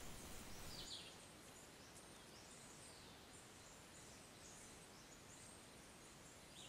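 Near silence: faint outdoor background hiss with short, faint high bird chirps every second or so.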